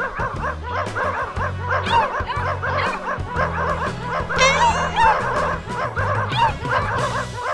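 A pack of puppies yipping and barking, many short overlapping yips in quick succession, over cheerful background music.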